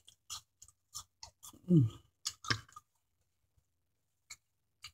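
A person chewing crunchy food close to the microphone, a quick series of crisp crunches through the first three seconds that thin out to a couple of faint ones. A short vocal 'mm' falling in pitch comes about two seconds in.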